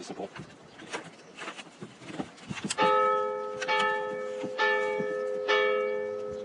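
Light clicks and rustles of a MOLLE rucksack's plastic frame and webbing being handled. Then, a little under halfway in, bells begin ringing: a new note is struck about once a second, and each one rings on under the next.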